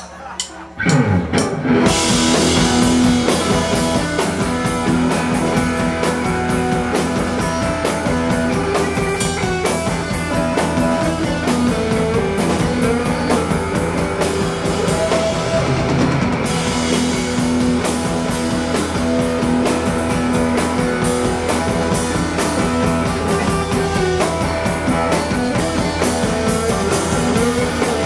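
Live rock band starting a song: a few drum hits, then the full band comes in about a second in with electric guitar and drum kit playing steadily.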